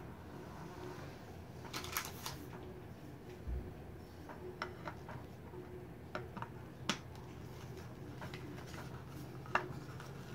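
Light plastic clicks and taps as a PVC anime figure is handled and fitted onto its round black display base, with a soft low knock a few seconds in. A steady low hum runs underneath.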